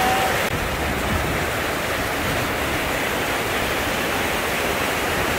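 Seawater surging and foaming over shore rocks: a steady rushing wash of surf.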